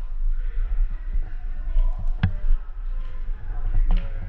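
Low steady rumble with a few separate sharp clicks or knocks; the loudest comes a little over two seconds in.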